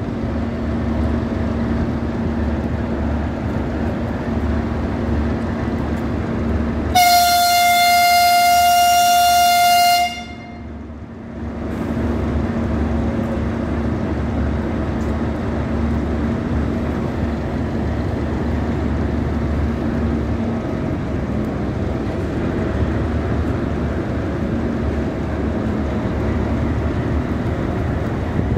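The DDB1 diesel train's locomotive section running with a steady diesel throb at standstill. About seven seconds in, one long blast of its horn sounds, a single steady note lasting about three seconds, the departure signal.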